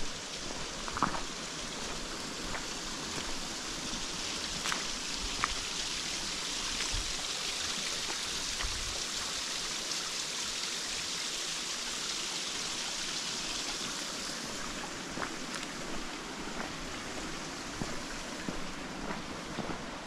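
Rushing water, a steady hiss that grows a little louder in the middle and eases off again, with a few light clicks scattered through it.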